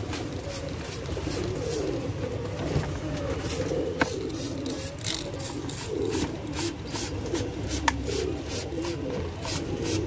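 Domestic pigeons cooing in a low, wavering murmur. There is a sharp click about four seconds in and another just before eight seconds.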